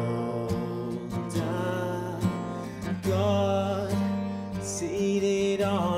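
Worship band music with no words sung: acoustic guitar strumming over held chords, with a melody line coming in about halfway through.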